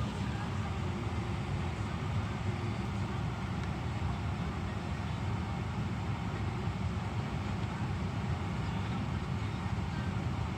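Steady rain heard from inside a car's cabin, an even hiss over a low, constant rumble.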